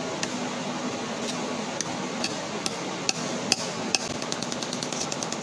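Sharp metallic taps, about two a second, closing in a quick run of taps near the end, over a steady low hum.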